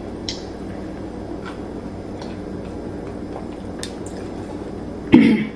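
Eating by hand: fingers working rice and fried egg on a plate and chewing, a few soft clicks over a steady room hum. A brief vocal sound near the end is the loudest thing.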